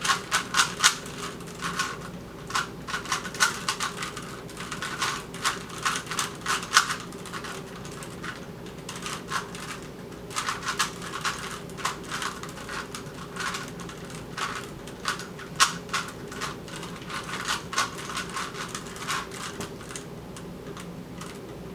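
Rubik's Cubes being twisted fast during a timed solve: a rapid, irregular clatter of plastic layer-turn clicks, over a steady low hum.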